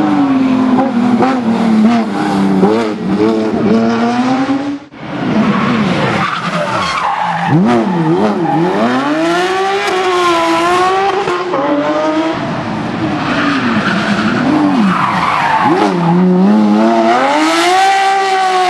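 Porsche 911 GT3 rally car's flat-six engine at full throttle, its pitch climbing and falling sharply with gear changes and throttle lifts. The sound breaks off suddenly about five seconds in and picks up again in another pass.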